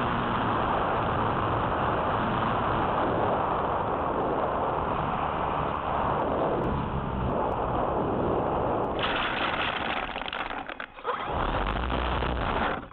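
Steady rush of air and electric motor-and-propeller noise from an E-flite Apprentice S15e RC plane, as picked up by its onboard camera's microphone while it comes in low to land. About ten seconds in, the noise breaks up into rustling and scraping as the plane touches down and runs through long grass. Near the end it cuts off suddenly as the plane stops.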